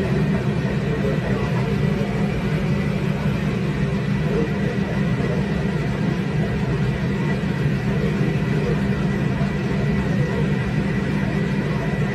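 Steady low rumble of a running machine, with a faint high whine above it.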